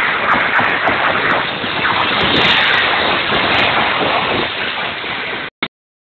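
RC drift car's electric motor whining up and down in pitch over a loud, steady hiss of its tyres sliding on the smooth track surface. The sound cuts off abruptly about five and a half seconds in.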